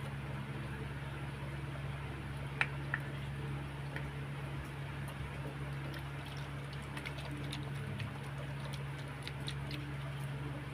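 Faint small clicks and crinkles of fingers pressing and smoothing the foil lid back onto a small plastic Yakult bottle, with two sharper clicks near the three-second mark, over a steady low hum.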